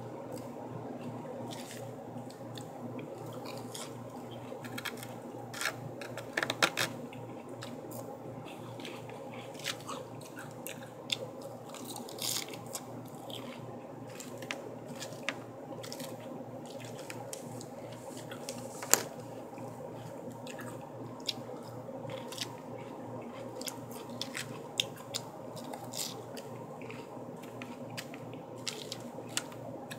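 Crisp lettuce salad being chewed, with scattered sharp crunches and a fork clicking in the bowl now and then, one louder click about two-thirds of the way through. A steady low hum runs underneath.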